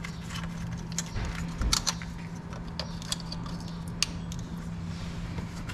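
Sharp light clicks and small plastic-and-metal handling sounds as the ignition coil connectors are worked onto the coils of a Toyota Tundra's 4.7-litre V8, with a quick cluster of clicks about two seconds in. A steady low hum runs underneath.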